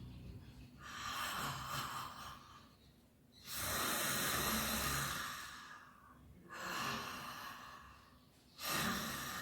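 Ujjayi ("ocean breath") breathing done with the mouth open: slow breaths drawn through a narrowed throat, giving a soft, ocean-like hiss. Four long breaths in turn, the second the longest and loudest.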